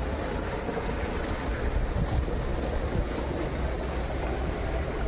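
Steady rushing of water from a pipe outlet pouring into a shallow irrigation channel and flowing along it, with a low wind rumble on the microphone.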